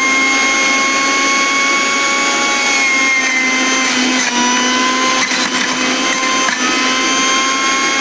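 Sujata Powermatic Plus 900-watt juicer mixer grinder running its centrifugal juicer on sweet-lime halves pushed down the feed chute: a loud, steady motor whine that dips slightly in pitch about three and four seconds in.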